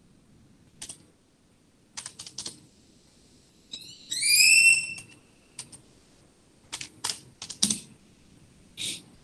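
Computer keyboard keystrokes, scattered clicks in small clusters. About four seconds in there is a loud, high squeak that rises and then holds for about a second.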